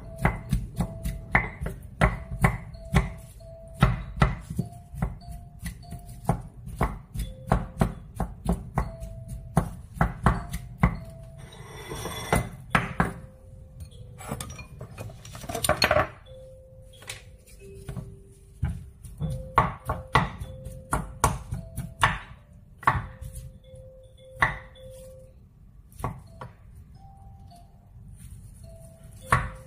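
Wooden spatula knocking and scraping against a small nonstick frying pan as potato and corn are pressed and stirred together: many quick irregular taps, coming thickly in the first half and more sparsely later, with a couple of short scrapes midway.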